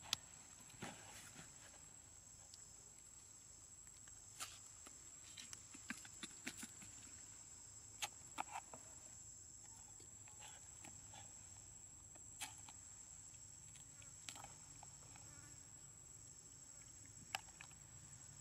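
Faint, steady, high-pitched insect drone, with scattered sharp clicks and small snaps over it.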